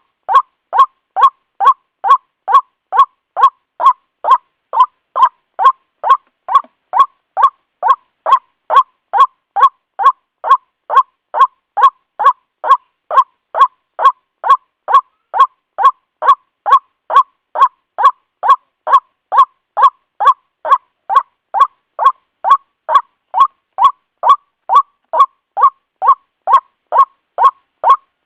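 White-breasted waterhen (ruak-ruak) call: short notes repeated evenly, a little over two a second, without a break.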